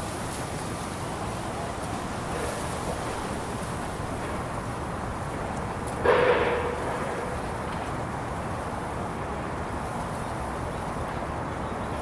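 Steady outdoor street ambience of traffic and wind. About six seconds in, one sudden loud bang rings on briefly with a held tone before it fades.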